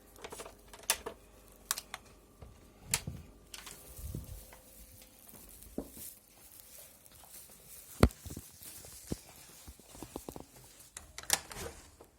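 Irregular knocking and tapping on a door, with one heavy thud about eight seconds in and a quick cluster of knocks near the end.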